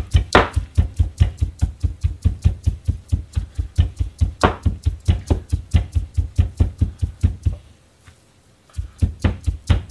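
Chinese cleaver rapidly mincing pork and vegetables on a plastic cutting board: an even run of chops, about five a second. The chopping stops for about a second near the end, then starts again.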